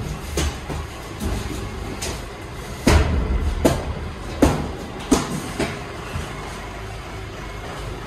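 Cardboard boxes being set down and stacked by hand inside a steel shipping container: a series of thuds and knocks, about seven in all, the loudest about three seconds in, over a steady low rumble.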